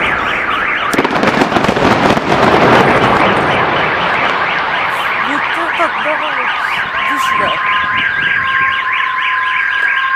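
Several car alarms wailing together with fast repeating warbles, with a steady two-tone alarm joining about seven seconds in. Fireworks crackle and bang loudly over the first few seconds, then die away.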